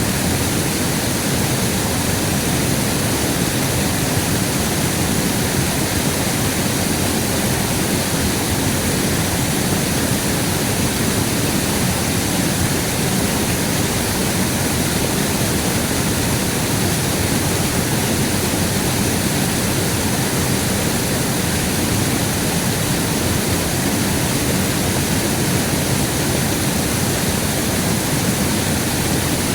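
River water rushing, a loud steady noise with no breaks.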